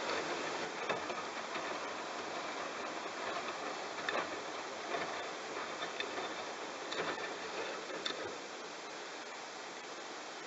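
Bosch washing machine drum tumbling wet towels: water sloshing with irregular knocks and clicks. The tumbling stops a little past eight seconds in, leaving a steady hiss.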